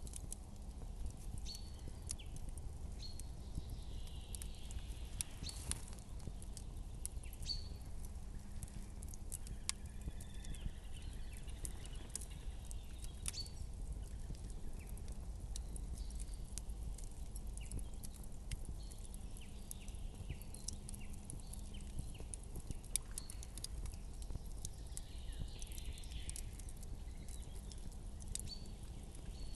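Campfire crackling, with scattered sharp pops and snaps at an uneven pace over a low steady rumble.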